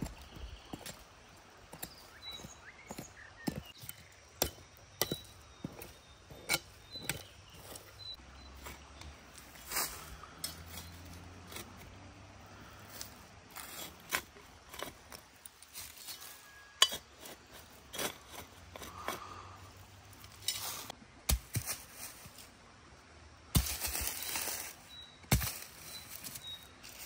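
Scattered clinks and knocks of kitchenware as food is prepared: a knife chopping on a cutting board and dishes being handled, at irregular intervals with a brief louder rustling clatter near the end.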